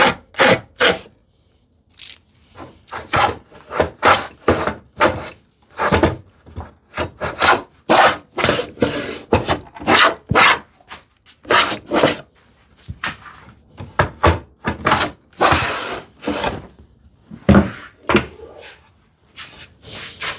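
Stanley 45 combination plane plowing a groove along a wooden drawer side in quick, short strokes, about two a second, each a dry scraping rasp of the cutter taking a thick shaving. The strokes pause briefly near the start, and one longer stroke comes past the middle.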